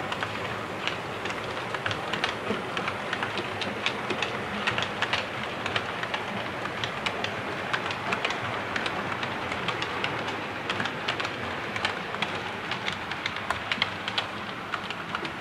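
Model railway train, an A3 locomotive hauling coaches, running along the track: a steady rolling whirr with many irregular light clicks of the wheels over rail joints.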